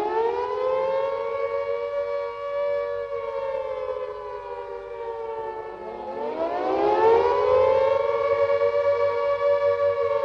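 British World War II air raid siren sounding its wailing warning. The pitch climbs and holds, sinks slowly from about three seconds in, then winds up again about six seconds in and holds high.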